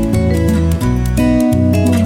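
Background music: an upbeat track with plucked guitar over bass and a steady beat.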